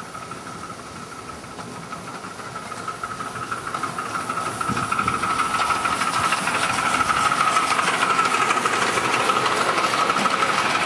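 Miniature ride-on steam locomotive hissing and chuffing rapidly as it approaches and passes, over a steady high-pitched tone, getting louder from about four seconds in.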